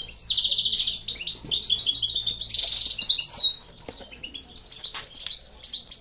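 Several caged songbirds singing and chirping. A loud, rapid trill comes in the first second, followed by a run of quick repeated phrases until about three and a half seconds in, then fainter scattered chirps.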